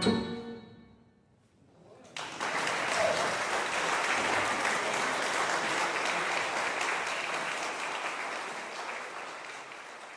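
The last chord of a double bass and grand piano dying away, then, after a short silence, audience applause that starts suddenly about two seconds in and holds steady before fading near the end.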